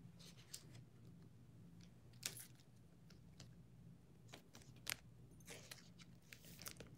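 Near silence: faint room hum with a few soft clicks and rustles of trading cards being handled.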